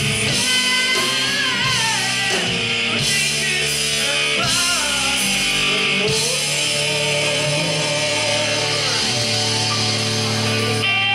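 Live rock band playing: electric guitars, bass, keyboards and drums under a male lead vocal.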